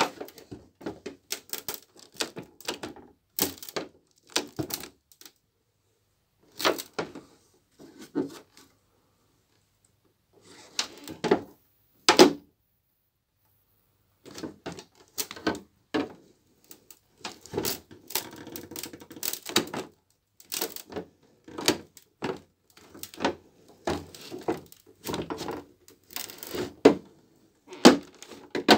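Boots stomping on foam, crushing it with crunching and crackling in irregular bursts, broken by a few short pauses.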